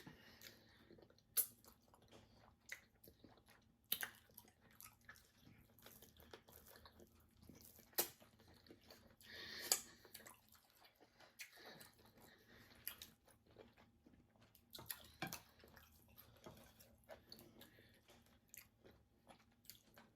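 People eating close to the microphone: quiet chewing and mouth smacks, with sharp clicks and short crunches scattered through, about one every second or two.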